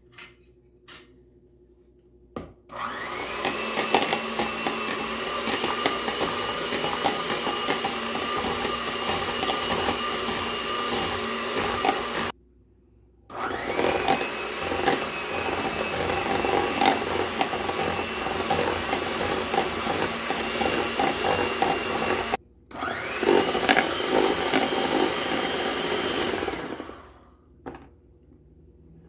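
Electric mixer beating cake batter, switched on three times: it runs for about ten seconds, then nine, then four, its motor whine rising as it spins up each time.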